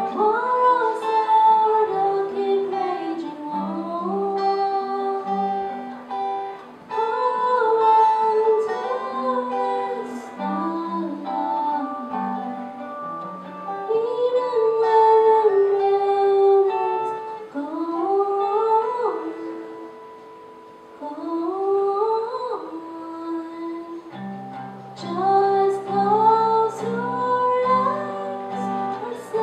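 A singer performing a slow song over fingerpicked acoustic guitar. Fuller, lower guitar notes join the accompaniment about 24 seconds in.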